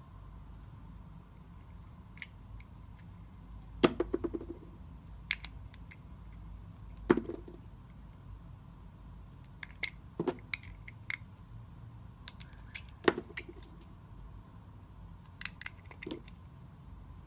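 A knife cutting into a bar of soap, giving crisp cracks and small clicks at irregular intervals, with four louder knocks about three seconds apart.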